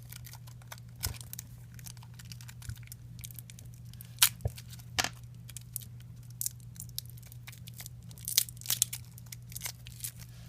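Cardboard pieces of a VR viewer kit being handled and pulled free, with scattered tearing crackles and sharp clicks over a steady low hum.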